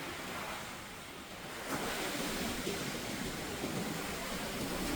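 Ocean surf washing on the beach, a steady rush that swells up again about a second and a half in.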